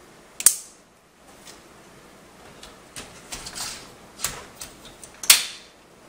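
Hard drive in a plastic tool-less tray being slid into a PC case's drive cage: a sharp click about half a second in, then small clicks and scraping, and a loud click near the end as the tray snaps into place.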